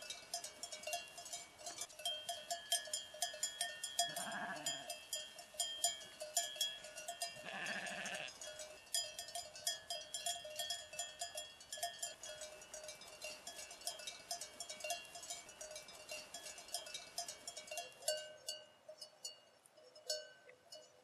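Many bells on a flock of sheep jingling constantly, with a sheep bleating twice, about four and eight seconds in; the jingling thins out near the end.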